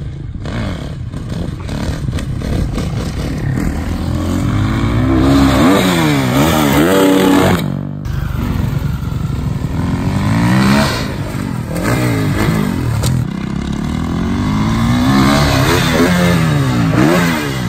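Dirt bike engine revving, its pitch climbing and falling again and again as the throttle is opened and closed around the track and up to a jump. The sound breaks off briefly about eight seconds in, then the revving carries on.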